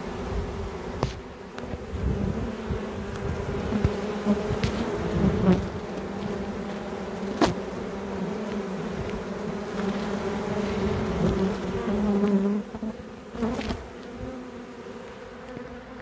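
A mass of honeybees from a fresh swarm buzzing close by: a steady hum with a low drone and a higher one above it, swelling and easing. A few short sharp clicks cut through it.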